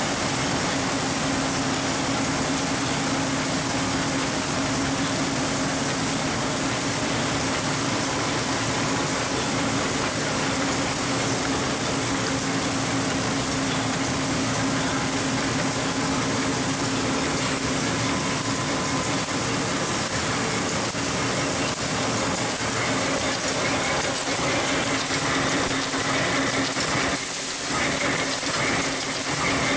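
Paper bag making machine running at speed: a steady mechanical din with a constant low hum as rollers and belts feed the paper bag tubes through. A higher steady whine joins in about three-quarters of the way through.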